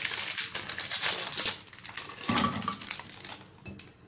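Plastic Oreo wrapper crinkling and Oreo cookies dropping with light clatters into a plastic blender jar, the crinkling densest in the first second and a half.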